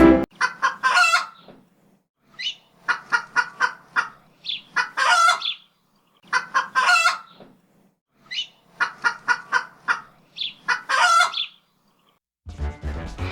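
Chicken clucking: runs of quick short clucks, each ending in a longer drawn-out squawk, repeated several times with short pauses between.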